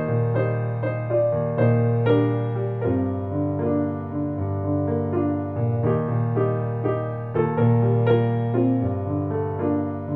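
Background piano music: a gentle melody over held bass notes.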